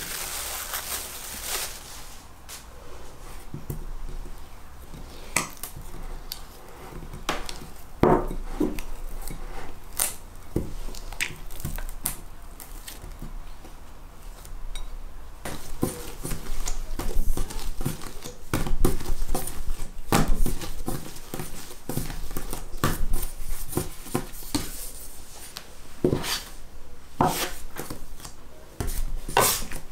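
Cling film crinkling as it is peeled off a glass bowl of dough, then scattered soft knocks and taps as the dough is handled and pulled apart into pieces on a worktop.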